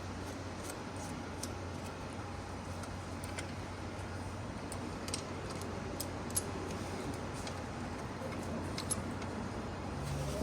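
A steady low hum with scattered small metallic clicks and clinks.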